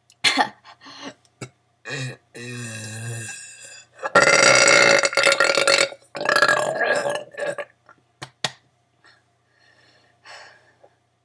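A girl burping on purpose, several burps in a row: short ones at first, then a long, loud burp about four seconds in, followed straight away by another.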